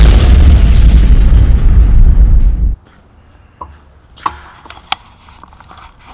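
An explosion sound effect: a loud, deep boom with a long rumbling tail that cuts off abruptly about two and a half seconds in. Then quiet shop room tone with a few light, sharp knocks.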